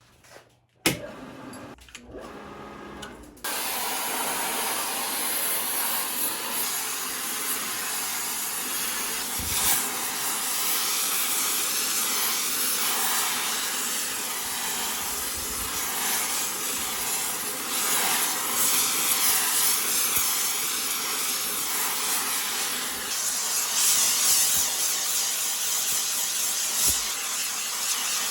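Screw-cone log splitter driven by an old, roughly 40-year-old electric motor, running steadily from a few seconds in. There is a sharp knock about a second in.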